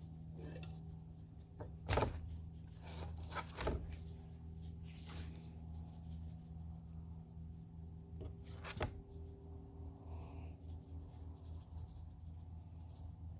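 Faint handling noises from salting whole fish: a few short clicks and rubs, the clearest about two seconds in, around three and a half seconds and near nine seconds, over a steady low hum.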